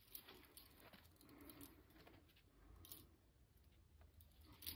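Near silence, with a few faint clicks and light handling noise of small wooden craft pieces being fitted together.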